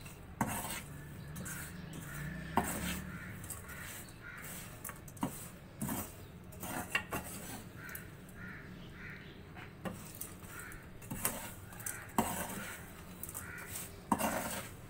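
Stainless steel mesh strainer stirring and scraping peanuts and rock salt around a black iron wok during dry-roasting, with irregular clinks and knocks of metal on the pan and the rattle of nuts and salt grains.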